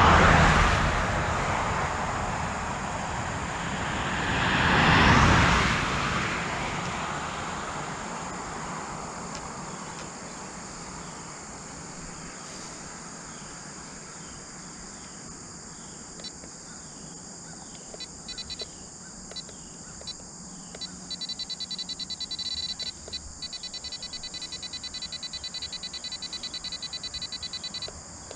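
Cars passing on a highway, two of them rising and fading away, one right at the start and one about five seconds in. Over the second half, insects chirp in rapid high pulsed trains that run almost continuously near the end.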